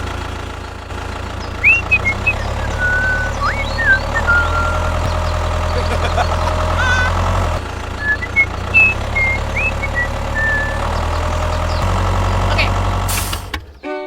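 Engine running at an idle-like steady pace, a low heavy hum that steps up about a second in and shifts level a few times, with short high chirps over it; it cuts off abruptly near the end.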